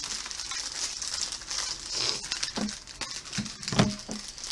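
Shiny plastic chip bag crinkling as it is handled and tugged at to tear it open, with a few dull knocks near the end.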